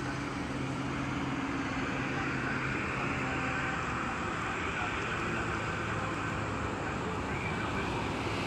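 Steady outdoor background noise with a faint low hum, even throughout, with no distinct events.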